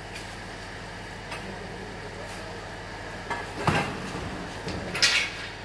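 Splashes and knocks as a car's windshield is washed by hand with water poured from a mug, twice: about three and a half seconds in and again about five seconds in, over a steady low hum.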